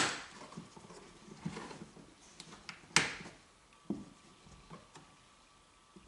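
Plastic lid of a Volvo overhead eyeglass holder being opened and snapped shut by hand. There are two sharp clicks about three seconds apart and a lighter click about a second after the second, with soft rubbing of fingers on the plastic between them.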